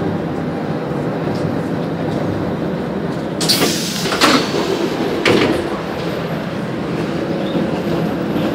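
Sorefame/Bombardier ML90 metro train heard from inside the car, a steady rumble as it slows to a stop at a platform. About three and a half seconds in come three short, loud bursts of hiss and clatter, the doors sliding open as the train halts.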